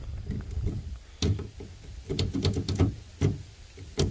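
A key clicking and rattling as it is worked in the rear lock of a 1971 Plymouth station wagon: a string of irregular sharp clicks.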